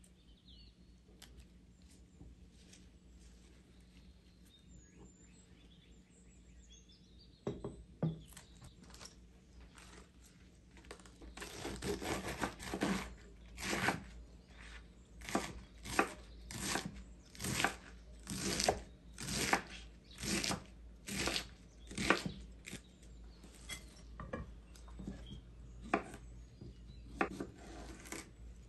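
Chef's knife chopping through a head of lettuce on a wooden cutting board: crisp cuts each ending in a knock on the board, about one a second. They start after a quiet stretch about a third of the way in and thin out near the end.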